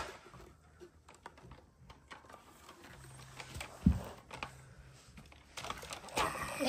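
Light plastic clicks and handling noises from a toy microscope as a slide is fitted to its stage, with a single dull thump about four seconds in and busier clicking near the end.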